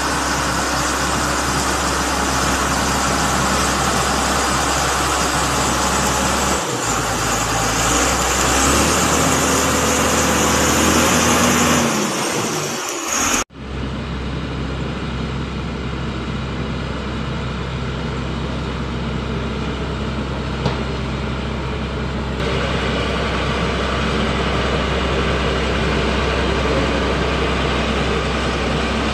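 LiuGong motor grader's diesel engine running steadily as it grades, its low note shifting a few times; after a sudden cut about halfway, a Foton single-drum roller compactor's diesel engine running steadily.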